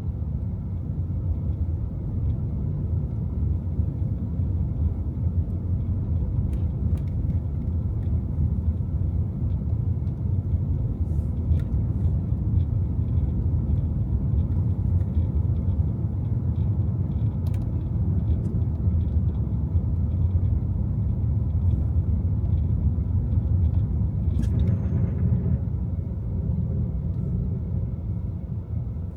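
Steady low rumble of a car driving on snowy city streets: engine and tyre noise, with a few faint clicks and a brief hiss about 25 seconds in.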